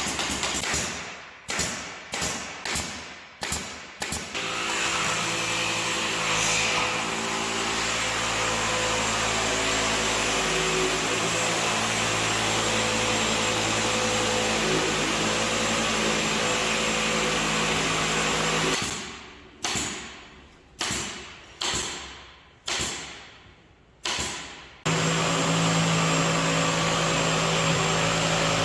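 An electric power tool's motor runs steadily. Near the start, and again for several seconds later on, it is triggered in a series of short bursts, each winding down before the next.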